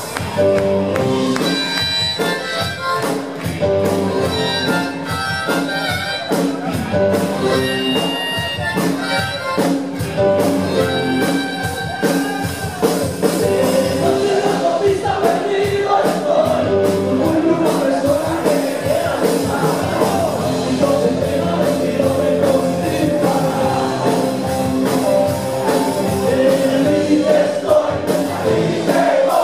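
Rock band playing live in a concert hall, with drums keeping a steady beat under guitars and other instruments.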